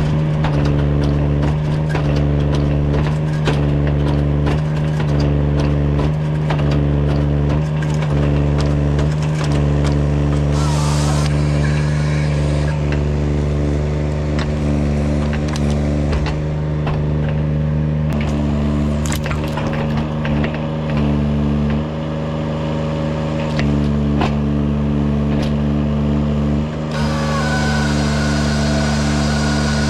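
Kranman Bison 11 000 mini forwarder's engine running under hydraulic load while the Jobo ST35 harvester head on its crane feeds and delimbs small thinning stems, with many sharp cracks of snapping branches. Near the end the head's saw starts up with a steady high whine over a hiss as it cuts through a stem.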